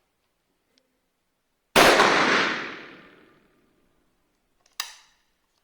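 A single shot from a 36-gauge (.410) shotgun firing a CBC Knox single slug: one loud crack with a tail that fades over about a second and a half. About three seconds later comes a short, much fainter sharp clack.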